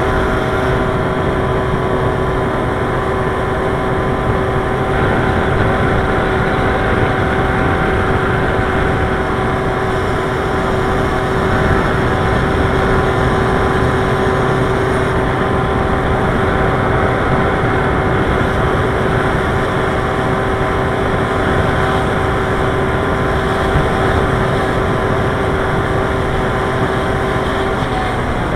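Steady rushing noise of wind and travel on a small head-worn camera's microphone while moving along a street, with a few constant whining tones over it.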